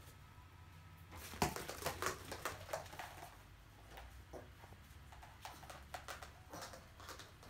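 Yorkshire terrier's paws in dog boots pattering quickly on a laminate floor as it runs, in irregular bursts of taps, with a sharp knock about a second and a half in.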